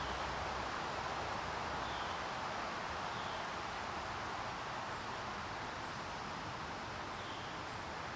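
Steady outdoor background noise with a few faint, short, high chirps scattered through it.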